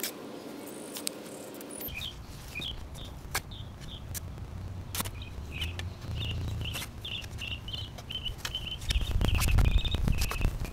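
Steel shovel scraping and chopping into loose soil, with scattered short knocks, while a bird chirps over and over in the background from about two seconds in.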